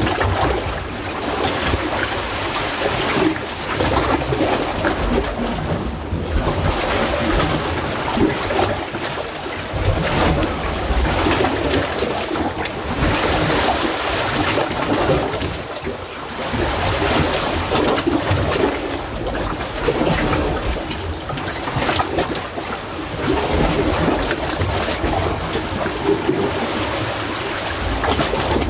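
Seawater surging and sloshing in a narrow gap between coral rocks, a continuous rushing wash that swells and eases every few seconds as the waves come in.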